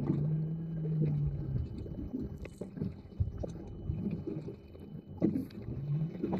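Trolling motor alarm sounding a steady high-pitched tone on a boat on open water, with wind on the microphone and scattered light clicks. The alarm is a fault warning whose cause is unknown: the battery is full and the motor otherwise works perfectly. A low hum covers the first second and a half.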